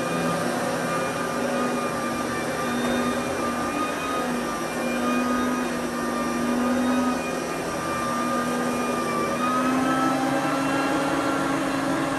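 Sebo BP60 cordless upright vacuum cleaner running on carpet: a steady motor whine that wavers slightly in pitch as it is pushed back and forth.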